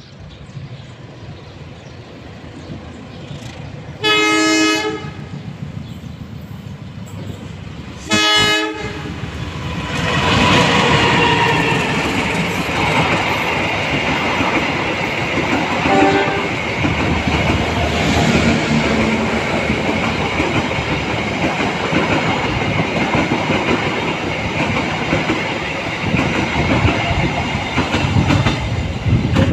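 A KAI passenger train's locomotive sounds its horn twice as it approaches, a blast of about a second around four seconds in and a shorter one around eight seconds. From about ten seconds the long train passes close by, its wheels clacking over the rail joints under a steady rumble and a high ringing from the rails.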